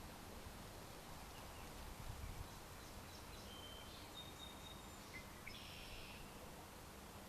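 Faint outdoor ambience: a steady background hiss with small birds calling a few times, thin high whistled notes and one short buzzy call in the middle, and another brief call near the end.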